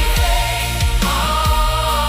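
Christian worship song music: a steady low beat under long held melody notes.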